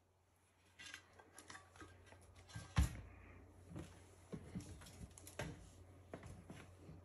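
Stainless steel oven door panels being handled on a bench: scattered light clicks and taps of metal parts being turned over and set down, starting about a second in, with one louder knock about three seconds in.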